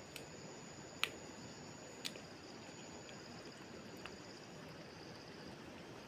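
Insects chirring faintly in a high, fast-pulsing trill, with a thin high whine that stops about two-thirds of the way through. Two sharp clicks sound about one and two seconds in.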